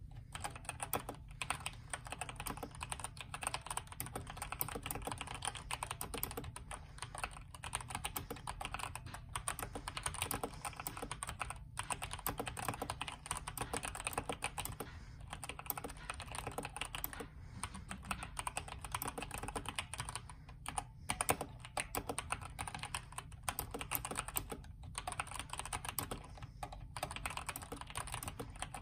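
Continuous fast typing on a Redragon K552 mechanical keyboard with stock Outemu red linear switches, broken by a few brief pauses. The case is filled with polyfill, the PCB has a tape mod and the space bar stabilizers are taped.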